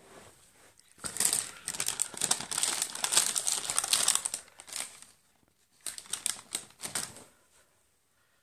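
Paper bag rustling and crinkling in quick crackly handling noises for about four seconds, then again in a shorter spell about six seconds in.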